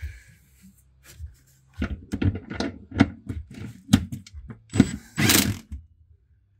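Irregular metallic clicks and knocks from tools and bolts being worked during a transmission mount install, then a short half-second burst of an impact wrench about five seconds in.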